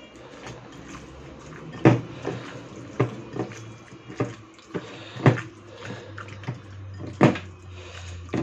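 A hand mixing raw marinated chicken pieces in a glass bowl: wet squelching, with sharp knocks against the glass about once a second.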